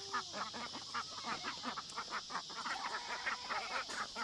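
Ducks quacking, a rapid run of short calls several a second.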